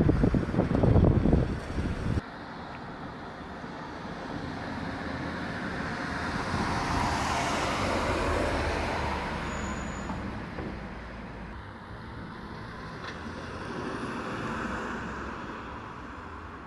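Wind buffeting the microphone for the first two seconds. Then a road vehicle drives past, its noise swelling and fading over several seconds, with a fainter second pass near the end.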